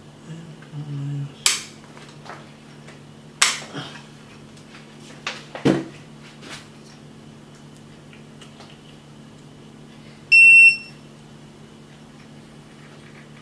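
A few sharp plastic clicks and knocks as the dashboard of a Xiaomi M365 electric scooter is pried up and handled at the handlebar stem. About ten seconds in comes a single short electronic beep, the loudest sound.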